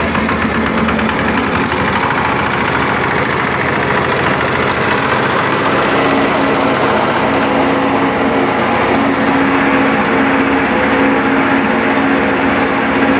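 Small engine of a concrete mini mixer running steadily, with a hum that grows stronger about six seconds in.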